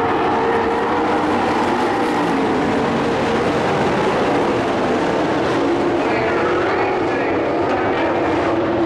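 Several dirt-track race trucks' engines running together at speed around the oval, a loud, steady engine drone.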